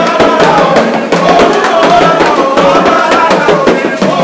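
Lively drum-led music: fast hand-drum and percussion strikes under a wavering melodic line.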